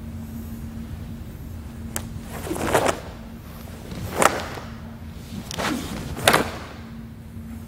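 Karate gi cloth whooshing and snapping as fast strikes are thrown in a kata: a light click, then several whooshes that end in sharp snaps, the loudest about four and six seconds in.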